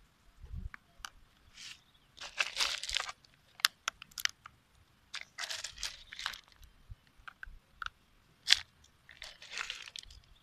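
A person chewing crunchy food close to the microphone: three bouts of crunching about a second each, with sharp clicks in between.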